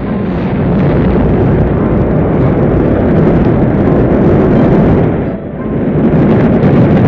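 Rocket engines at liftoff: a loud, continuous low rumble that eases briefly about five seconds in, then comes back.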